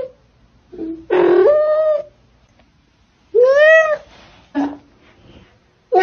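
A cat meowing repeatedly. There are three long meows, each rising and then falling or levelling in pitch, and two short, lower calls between them.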